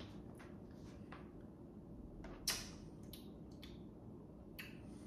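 Quiet room with a few faint, short clicks and taps as a plastic shaker bottle is handled and sipped from, the clearest about halfway through.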